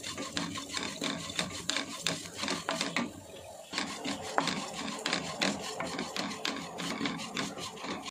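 Wooden spatula scraping and stirring flattened rice (aval) in a nonstick pan as it roasts in ghee: a quick run of rustling scrapes, with a brief lull about three seconds in.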